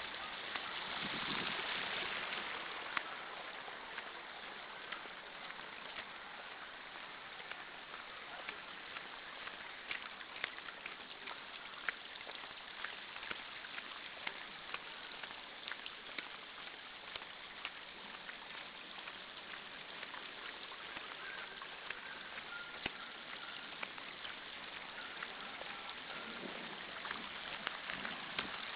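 Muddy rainwater runoff rushing over pavement in a steady wash, with frequent sharp ticks of raindrops and splashes.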